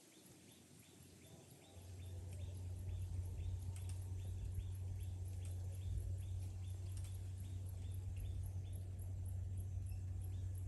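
A regular train of short, high chirps, a few a second, over a steady low hum that comes in about two seconds in.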